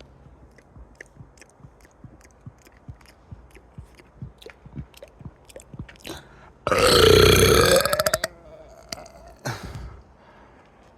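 A loud, long burp about seven seconds in, lasting well over a second and ending in a rattle, followed by a shorter, quieter sound about a second later. Before it, only faint mouth clicks.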